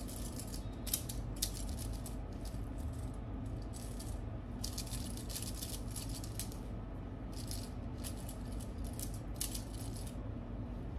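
Bangles on the wrist clinking and jingling against each other as the arm moves, in repeated clusters of quick clicks with short pauses between them.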